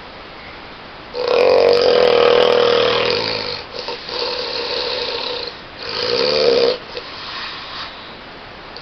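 A person snoring loudly. A long, low rattling snore starts about a second in, followed by a breathier stretch, then a shorter snore around six seconds in.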